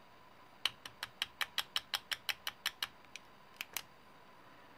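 Loose batteries knocking inside a metal flashlight tube as it is shaken, a quick run of about a dozen sharp clicks at roughly six a second, then two more near the end. The rattle is the sign of batteries too narrow for the tube, which lets the light blink or go out.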